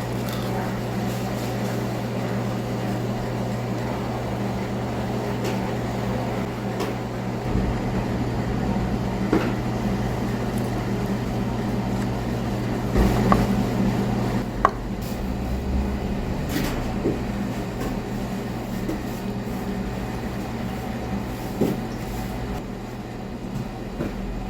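A steady low mechanical hum with a few scattered light clicks and knocks over it.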